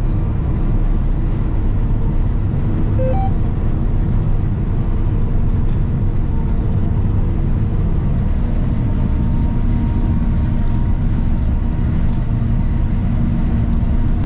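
Self-propelled forage harvester running steadily under load while chopping corn silage, heard as a constant low engine and machine drone inside the cab. About three seconds in, a short two-note electronic beep sounds.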